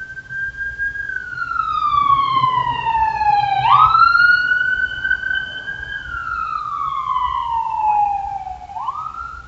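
A siren wailing: its pitch holds high, slides slowly down over a few seconds, then jumps quickly back up, twice, over a faint low rumble.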